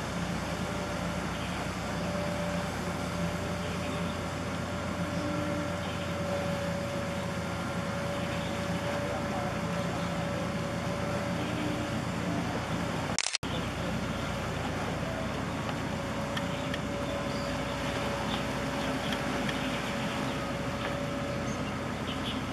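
Steady drone of a large LPG tanker's engines and onboard machinery as it moves past, with a steady whine held over it. The sound drops out for an instant about 13 seconds in.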